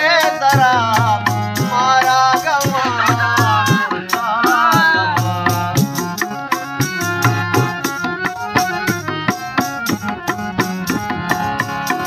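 Harmonium and dholak playing a Baloch folk song, with a man singing over them for the first few seconds. From about five seconds in, the harmonium's held chords and the dholak's hand strokes carry on without the voice.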